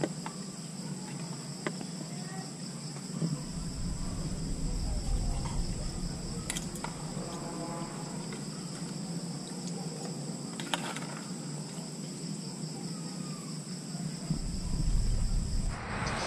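Insects trilling steadily at a high pitch, with a few light clicks. A low rumble comes in about three seconds in and drops away near the end, and a louder noisy burst follows just before the end.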